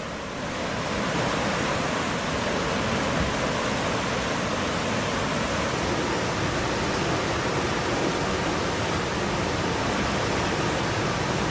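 Steady rushing hiss with no distinct events, somewhat softer at first and rising to a constant level about a second in.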